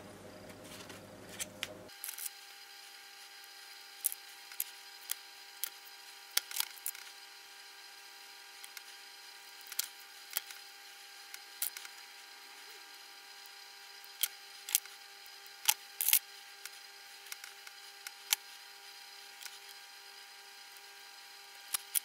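Irregular sharp clicks and taps of a small screwdriver and small metal lighter parts being handled on a work surface, over a faint steady hum.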